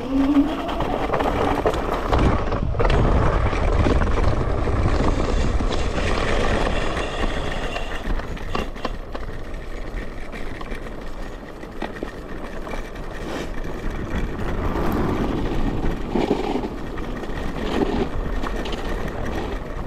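An electric scooter on the move: heavy wind rumble on the microphone mixed with tyre noise and scattered knocks and rattles.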